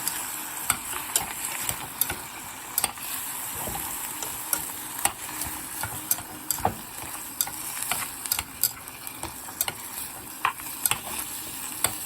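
Lean pork and dried shrimp sizzling in a pot while being stirred, the utensil knocking and scraping against the pot in many sharp, irregular clicks over a steady frying hiss.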